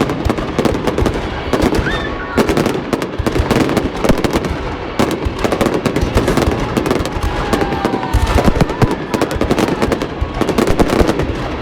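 Fireworks going off: a continuous, loud run of overlapping bangs and crackling, with a few brief whistles gliding in pitch.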